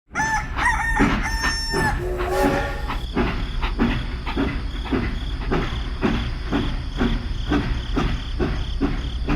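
A rooster crowing during the first two seconds or so, then a steady rhythmic chugging of about two to three beats a second.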